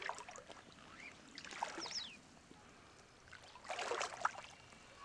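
Shallow stream water sloshing and splashing around legs wading through it, in three short bursts.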